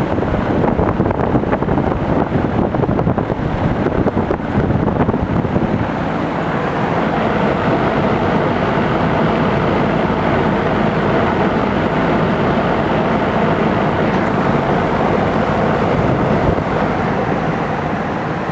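Rheem and Amana Distinctions heat pump outdoor units running in heating mode: the fans and compressors make a steady noise with a faint hum in it. The first few seconds sound rougher and more uneven, with some wind on the microphone.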